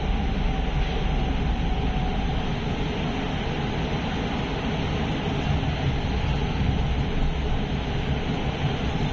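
Elevated metro train running at speed, heard from inside the car: a steady rumble of wheels on rail and running gear, with a faint whine that fades out about two seconds in.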